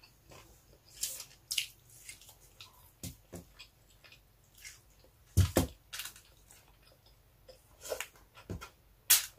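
Close-up eating sounds: chewing and wet mouth smacks on grilled chicken and rice eaten by hand, with fingers tearing the chicken on aluminium foil. Irregular sharp smacks and clicks, the loudest about halfway through and near the end.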